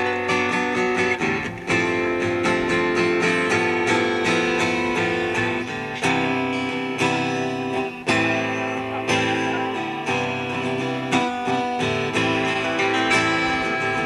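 Acoustic guitar strummed in a steady rhythm through chord changes, an instrumental passage with no singing.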